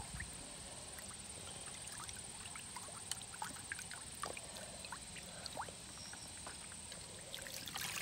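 Water in a plastic bucket: faint small splashes and drips around a Nerf gun hanging submerged on a wire. Near the end, water pours and splashes louder as the gun is lifted out.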